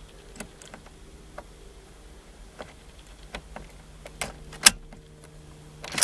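Keys jangling and small metallic clicks as a Ford Focus ignition lock cylinder, key still in it, is worked out of the steering column housing. The clicks are scattered and light at first, with a few sharper clicks in the last two seconds.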